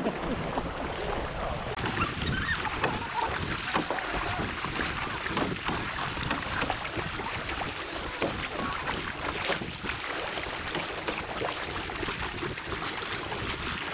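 Racing-kayak paddle blades splashing in quick strokes and water rushing along the hull of a K2, with the paddles of other kayaks close alongside splashing too.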